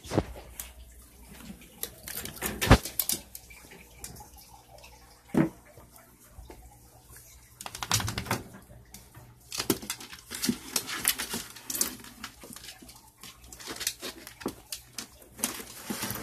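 A dog scrambling and playing on a tiled floor: scattered scuffs, clicks and knocks. There are two sharp knocks about three and five seconds in, and a denser clatter through the second half.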